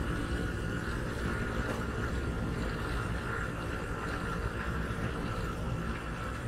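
Motorcycle ride noise heard from a handlebar camera: steady engine and road rumble with wind on the microphone.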